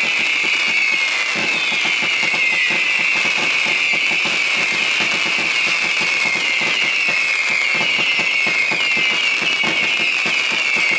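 Skystar SS0075 'Hungry Wolves' 225-shot, 14 mm firework cake firing in quick succession: a constant stream of overlapping shrill whistles, each sliding down in pitch, over continuous popping and crackling from the spit-crackler stars.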